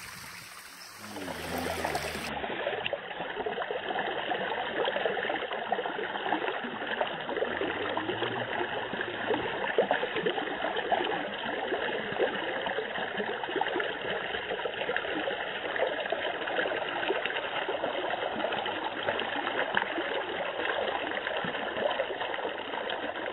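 A thin, shallow flow of water trickling and running steadily over rock slabs into a pool, the falls running low on water. It becomes louder about two seconds in and then stays even.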